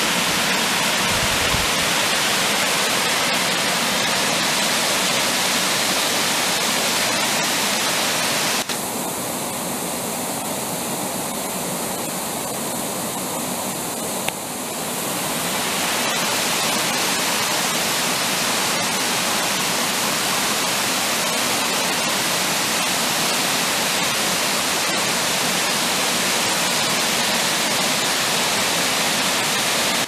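Saruo Falls, a tall waterfall and the stepped cascade below it, rushing steadily. The sound is a little quieter and thinner from about nine to fifteen seconds in, then returns to full strength.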